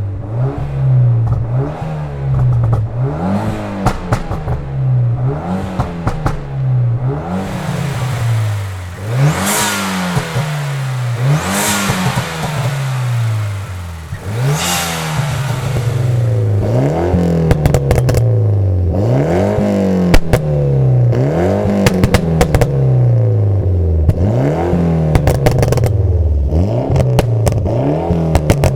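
Tuned Mitsubishi Lancer Evolution X's turbocharged 2.0-litre four-cylinder driven hard, its revs climbing and dropping again and again, about once every second and a half. Sharp exhaust crackles and pops come off the throttle, thickest in the second half, and three loud hissing bursts come a little before the middle.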